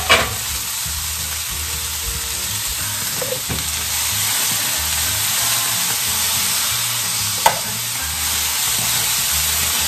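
Diced bell peppers sizzling in hot olive oil in a frying pan while being stirred with a wooden spoon, with a steady hiss throughout. Two sharp knocks of the spoon against the pan, one at the start and one about seven and a half seconds in.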